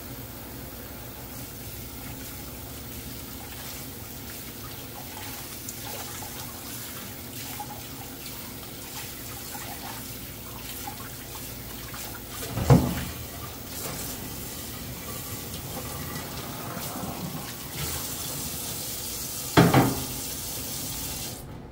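Tap water running into a stainless steel sink, splashing over hands and a plate, with two loud knocks, one about halfway and one near the end. The running water cuts off just before the end.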